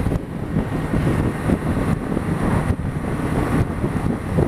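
A BMW G 310 GS motorcycle's small single-cylinder engine running steadily at road speed, under the rush and buffeting of wind on the microphone.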